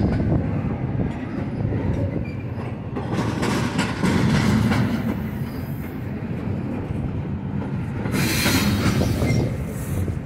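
Double-stack intermodal well cars rolling past close by: a steady low rumble of steel wheels on rail with clicking over the rail joints. About eight seconds in, a louder, high, hissing wheel noise rises for a second or so, then eases.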